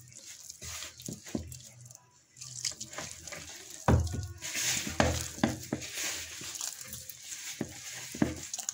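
Hand mixing and kneading pizza dough in a plastic bowl: irregular soft slaps, squelches and knocks against the bowl, louder from about four seconds in.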